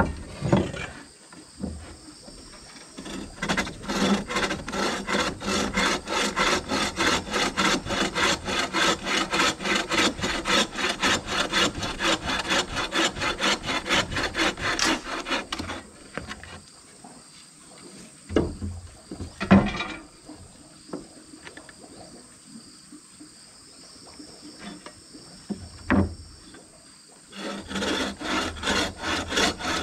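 Hand bow saw cutting through a wooden plank in even back-and-forth strokes, about three a second. The sawing stops about halfway, a few sharp knocks follow, and the strokes start again near the end.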